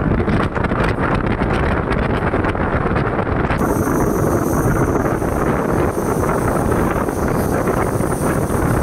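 Express passenger train running at speed, heard from the open coach door with wind buffeting the microphone. About three and a half seconds in the sound changes and a thin high whine joins the rolling noise.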